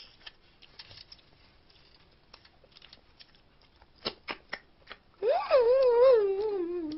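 Small clicks and cracks of snow crab shell being picked at and broken by hand, with a few sharper cracks about four seconds in. Then a woman's long hummed 'mmm' with a wavering pitch that slides downward, starting about five seconds in and becoming the loudest sound.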